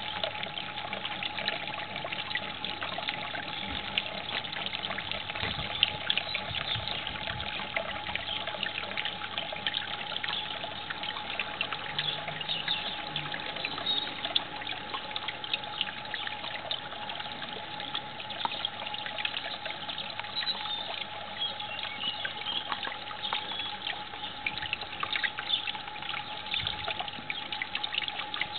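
Water trickling and splashing steadily on a model garden watermill, with a thin steady hum underneath.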